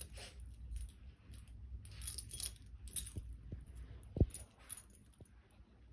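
Small dog's collar tags jingling in short, scattered bursts as the dog rolls and wriggles on a carpet, with a sharp knock about four seconds in.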